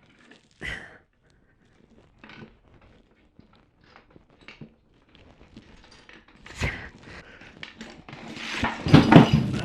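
Plastic Lego bricks knocking and clicking as they are pushed around, in scattered single taps. About eight seconds in, a louder burst of clatter and rustling follows.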